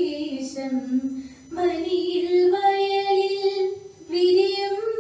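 A young woman's voice singing a devotional invocation prayer in long held notes. She breaks for breath about a second and a half in and again near the end.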